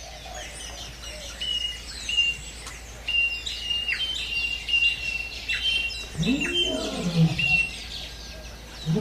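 Birds chirping and twittering in many short, high calls, used as a nature soundscape. About six seconds in a low animal call rises and falls in pitch, and a second one starts at the very end.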